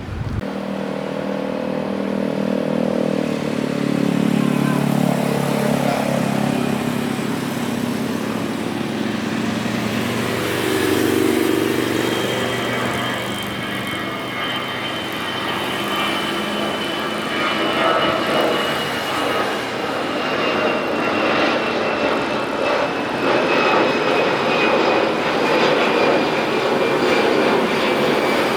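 Jet airliner departing under takeoff thrust: a loud rush of engine noise with low droning tones, then a thin high engine whine that slowly falls in pitch.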